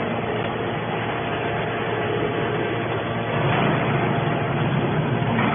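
Hydraulic scrap metal baler running: the steady hum and whine of its motor and hydraulic pump, getting a little louder about three and a half seconds in.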